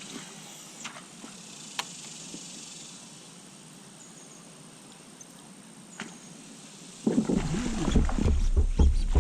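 Quiet open-air background with a few faint clicks, then about seven seconds in a sudden loud, irregular rumble of wind buffeting the microphone.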